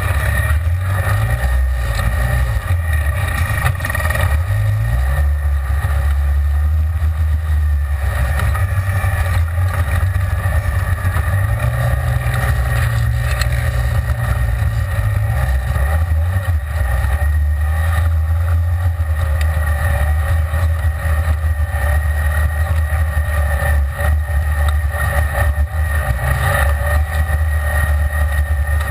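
Side-by-side UTV engine running under way, heard from inside the open cab. The engine note rises and falls with the throttle, climbing around four seconds in and again midway through.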